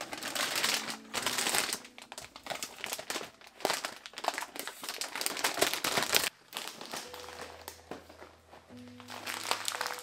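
Plastic bags of dried pasta crinkling and rustling as they are handled and lifted off a shelf, stopping abruptly about six seconds in. Soft background music with a few held notes plays underneath.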